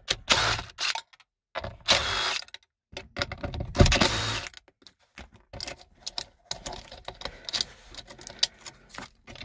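A DeWalt cordless driver running in three short bursts, about two seconds apart, as it backs out the bolts holding an airbag sensor module to the floor. Near the end come lighter clicks and rattles as the loosened module is handled.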